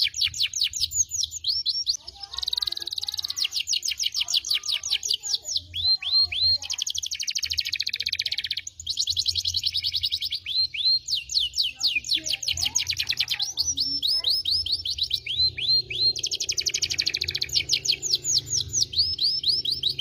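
Domestic canary singing a long unbroken song. Runs of fast repeated high chirps, each note a quick downward sweep, alternate with rapid buzzing rolls.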